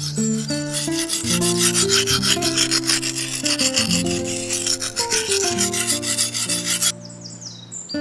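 Machete blade being sharpened on a sharpening stone: rapid rasping strokes of steel scraping across stone, stopping abruptly about a second before the end. Soft background music plays underneath.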